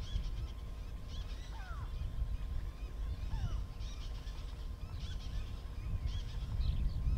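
Several wild birds calling, with repeated chattering phrases and a few sharp falling whistles, over a low rumble.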